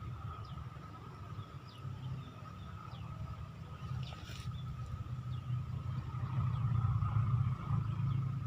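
Outdoor pond-side ambience: a steady low rumble under a steady high-pitched tone, with scattered short falling chirps and a brief rushing noise about four seconds in.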